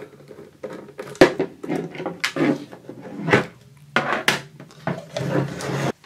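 Handling noise from taking apart a Tektronix 177 test fixture: screws being worked out, plastic side panels pulled off, and the metal fixture and parts set down on a table. Several sharp knocks and clatters with rustling between them, the loudest about a second in.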